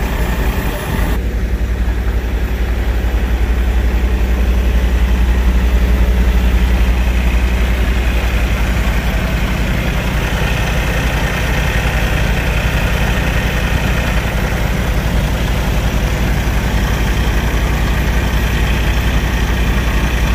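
Semi-truck diesel engine idling steadily with a deep, even hum; the sound shifts slightly about a second in.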